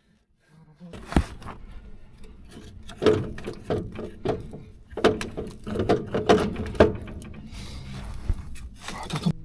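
Irregular knocks, clicks and clatter of hand work with tools, starting about a second in after a short silence.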